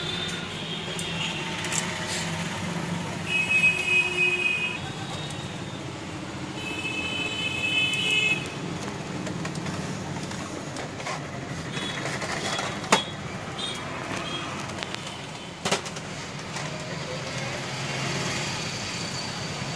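A few sharp clicks of plastic printer parts being handled inside an open inkjet printer, the loudest about 13 s in and another near 16 s. Under them runs a steady low hum, and twice early on come high steady tones lasting a second or two.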